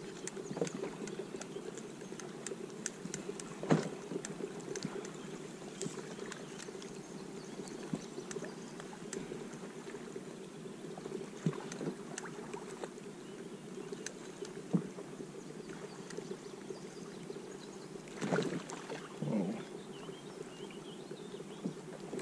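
Water sloshing and lapping against a fishing kayak's hull, with scattered light clicks and knocks. There is one sharp knock about four seconds in, and near the end two short louder sounds a second apart.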